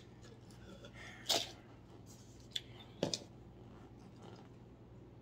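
Plastic candy-bar wrapper crinkling as it is opened, a few short sharp crackles with the loudest a little over a second in.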